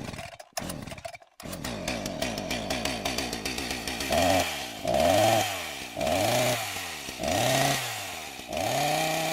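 Chainsaw engine sputtering a few times, then revved up and back down again and again, about five swells roughly a second apart.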